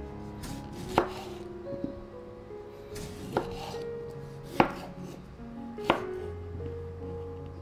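Kitchen knife slicing a tomato into rounds on a bamboo cutting board, the blade knocking on the board at the end of each slice: four sharp knocks and one fainter one, a little over a second apart.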